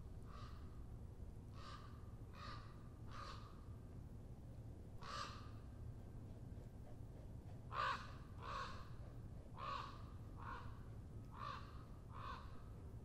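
A crow-family bird cawing: about a dozen short, harsh caws, singly and in pairs, the loudest a little past halfway, over a faint low steady rumble.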